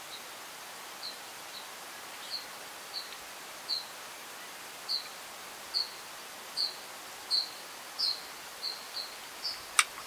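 A small bird gives a series of short, high single chirps, irregularly spaced about once or twice a second and getting louder over the second half, over a steady faint hiss. A single sharp click comes near the end.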